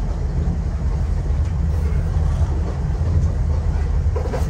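Steady low drone of the Sea Ray boat's engines running underway at trolling speed, with wind and water noise over it.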